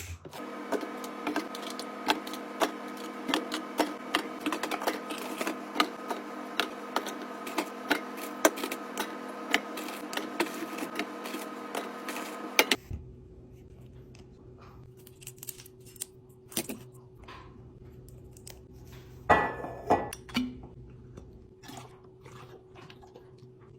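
Rapid clicks, taps and light knocks of containers and packaging being handled while a fridge is restocked. For about the first half a steady hum runs under them and then stops abruptly. After that the clicks are sparser, with one louder rustle or clatter a little before the end.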